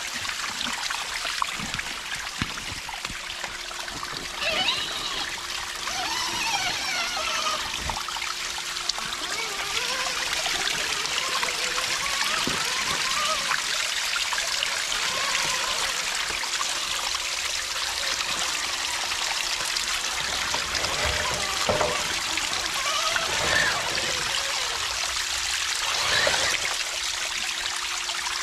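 Small stream trickling and splattering over rock ledges, a steady hiss of running water.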